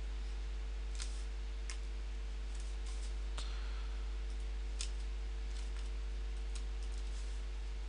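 Scattered light clicks from someone entering a calculation on a computer, about a dozen at uneven spacing, over a steady low hum.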